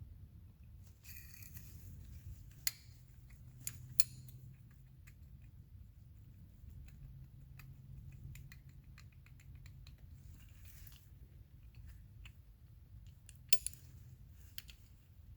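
Scattered sharp clicks and light metallic taps, with a few short scrapes, over a steady low hum: small metal parts and hand tools being handled.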